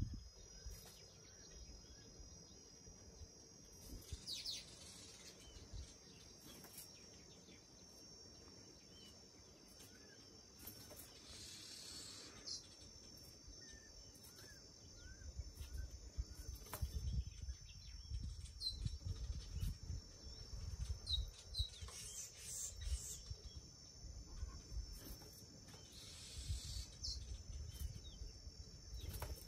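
Faint outdoor ambience: a steady high-pitched insect drone with scattered short bird chirps. Uneven low rumbling on the microphone runs through the second half.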